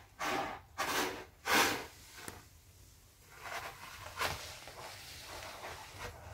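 Cat pawing in granular cat litter in a litter tray: three quick scrapes in the first two seconds, then softer rustling.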